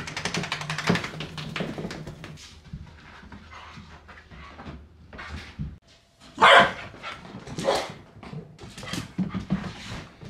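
A small short-haired mixed-breed dog giving several short, sharp play barks, the loudest about six and a half seconds in, while excited and doing zoomies after a bath. Quick clicking in the first couple of seconds.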